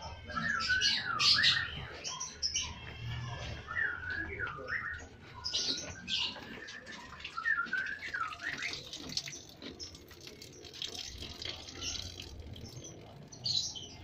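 Lovebirds in breeding aviaries chirping and chattering: repeated short warbling calls mixed with sharp, high chirps.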